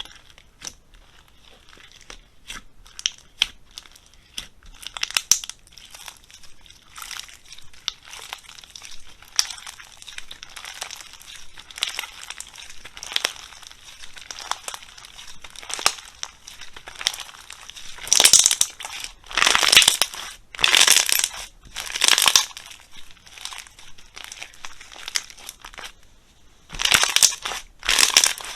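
Slime being squeezed and pressed, giving many small crackles and crinkles, with a run of louder crunching presses about two-thirds of the way in and again near the end.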